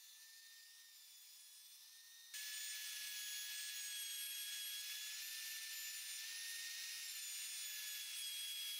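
Router spinning a flush trim bit as it trims a plywood edge: a steady high whine, faint at first and stepping up louder about two seconds in.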